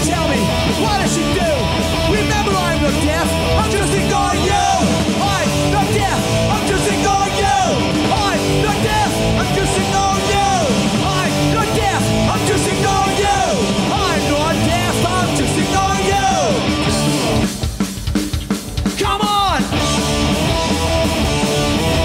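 Punk rock band playing live and loud: distorted electric guitars, bass and drums with shouted vocals. Near the end the band drops out for about two seconds, then comes back in at full volume.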